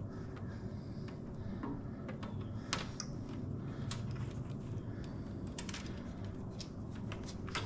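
Scattered small clicks and rattles of hands handling a motorcycle's light wiring harness and its plastic connector, over a steady low hum.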